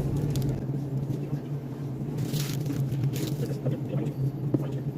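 Restaurant room noise: a steady low hum, with a couple of short hissing sounds about two and three seconds in.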